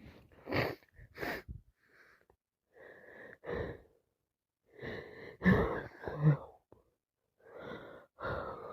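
A woman with a head cold sniffing twice in quick succession, then taking a run of short, gasping, wheezy breaths, loudest about five and a half and six seconds in.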